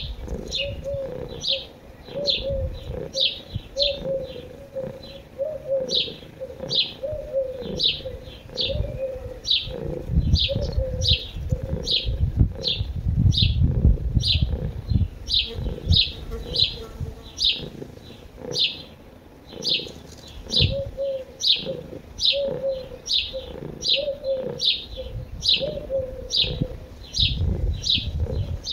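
Birdsong: a small bird gives short chirps at a steady pace of nearly two a second, while a dove coos in low repeated phrases in the first third and again after about 20 seconds, over uneven low rumbles.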